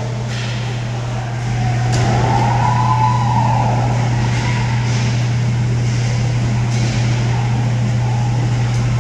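Inline hockey rink sounds over a steady low hum: a few sharp clacks of sticks and puck on the plastic tile floor, and about two seconds in a single drawn-out tone that rises and then falls in pitch.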